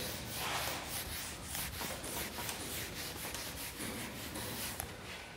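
Whiteboard eraser rubbing across a whiteboard in repeated back-and-forth strokes, wiping off marker writing.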